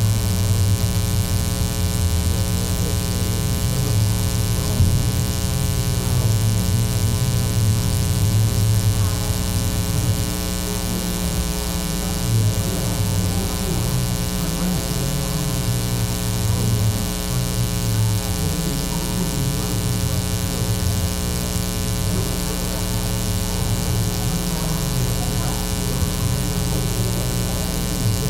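Loud, steady electrical mains hum, a buzz with many overtones, running under faint, muffled low murmuring.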